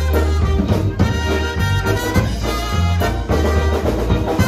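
Live dance band playing, with trumpet over a drum kit and steady bass.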